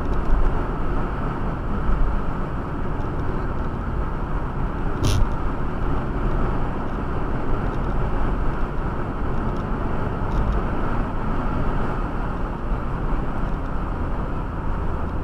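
Steady road and engine noise inside a car cruising at about 80–85 km/h, with a single short click about five seconds in.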